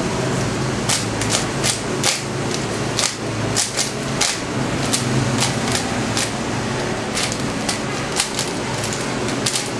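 A 3x3 speedcube being turned rapidly by hand: quick, irregular clicking and clacking of the layers, over a steady low hum.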